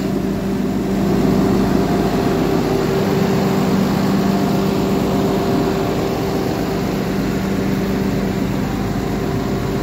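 Peterbilt 348's PACCAR PX-8 six-cylinder diesel engine idling steadily.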